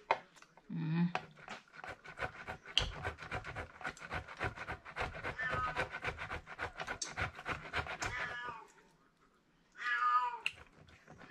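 A block of yellow cheese being grated on a metal box grater in quick, repeated rasping strokes. A house cat meows, most clearly once near the end.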